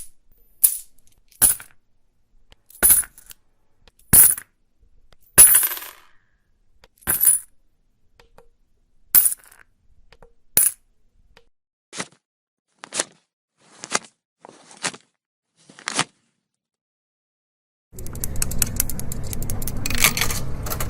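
Metal coins dropped one at a time, each a short sharp clink with a brief ring, about fourteen over some sixteen seconds. Near the end comes a continuous rattling jingle of many coins together, about three seconds long.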